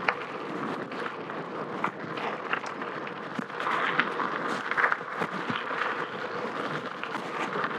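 Gravel bike rolling fast down a dirt trail: steady tyre and wind noise, with frequent small clicks and knocks from the bike over the bumps.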